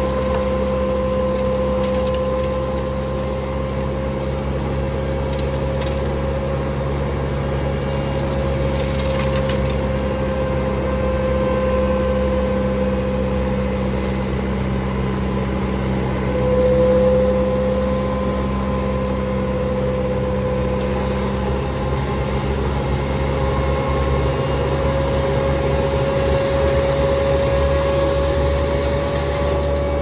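Street-sweeper truck's vacuum fan and engine running steadily while its wander hose sucks up debris: a steady high whine over a low drone. The sound briefly swells a little past halfway.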